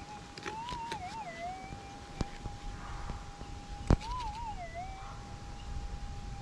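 Minelab GPX 6000 gold detector's steady threshold tone from its built-in speaker, wavering up and down in pitch twice as it signals a metal target. A few sharp knocks come through, the loudest about four seconds in.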